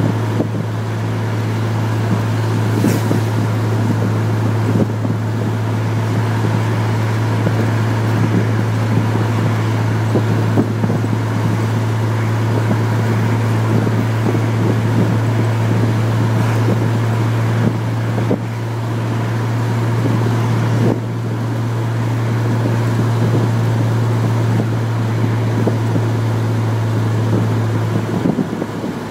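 Chevrolet Corvair's air-cooled flat-six engine and road noise heard from inside the cabin while driving: a steady low drone over a rushing hiss. The level drops briefly past the middle and eases again near the end.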